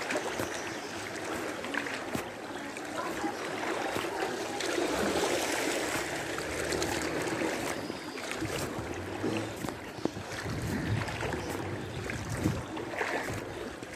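Floodwater sloshing and splashing steadily as someone wades through it, with scattered small clicks and a low hum in the middle.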